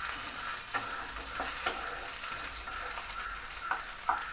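Potato sticks sizzling as they fry in mustard oil in a kadai, with a few scrapes and taps of a spatula against the pan toward the end.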